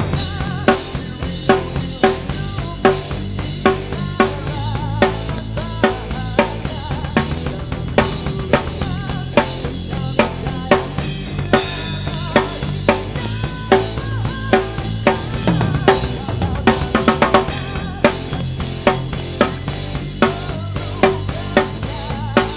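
Drum kit played in a steady groove along with a song, bass drum and snare hits landing at regular intervals under cymbals, with a melody and a singing voice carrying on beneath.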